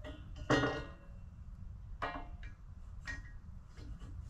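1-inch square steel tubing knocking against the metal brackets on the log as it is set in place: a loud ringing clank about half a second in, then two lighter clanks about two and three seconds in.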